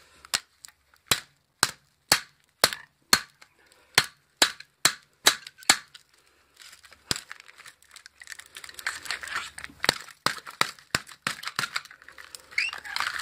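A hammer strikes a screwdriver that is wedged into a microwave transformer's steel core to break the coil free: about ten sharp blows, roughly two a second. About halfway through they give way to irregular clicking and crackling as the screwdriver is worked in among the paper insulation and windings.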